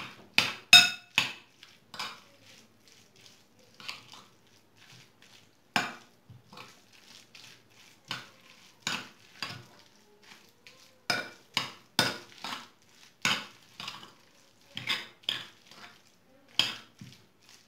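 A metal spoon clinking and scraping against a ceramic bowl while boiled noodles are stirred into a flour batter, in irregular strokes, some louder than others.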